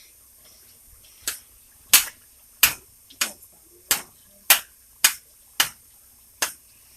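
A utensil knocking against a cooking pot, about nine sharp knocks evenly spaced a little over half a second apart, starting about a second in, as butter is stirred while it melts.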